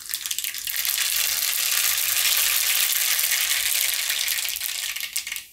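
Mustard seeds sizzling in hot oil in a kadai for a tempering (vaghar). The sizzle swells over the first second, holds steady, and tapers off near the end.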